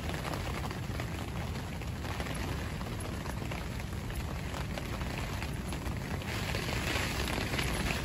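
Heavy rain pattering on the fabric of a carp-fishing bivvy, over a steady low rumble of gale-force wind. The rain gets heavier about six seconds in.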